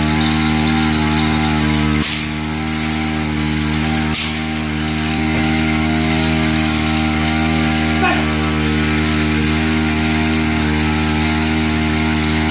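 Small engine of a powered sprayer running steadily at a constant speed while goats are being sprayed, its note dipping briefly about two seconds in and again about four seconds in.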